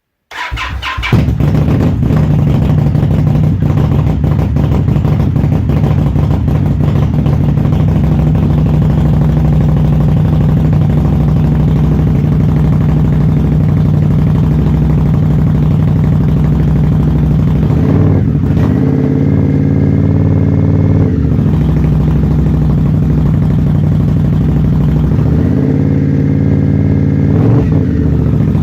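2017 Indian Scout V-twin with Vance & Hines Grenades mufflers starting up and settling into a steady idle. It is revved twice, once a little past the middle and again near the end.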